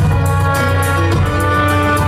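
Music playing: long held melody notes over a steady low bass, with a quick, light percussion beat.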